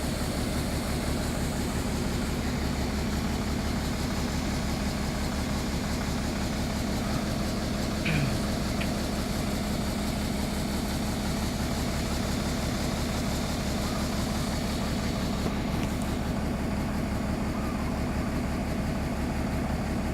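Excavator's diesel engine idling steadily with an even low pulse, and a brief squeak about eight seconds in.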